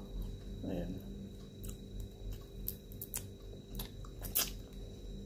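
Fingers peeling the shell off a cooked shrimp, with small crackling clicks, then biting into it and chewing. The loudest click comes near the end, as the shrimp goes into the mouth; a brief murmur comes about a second in.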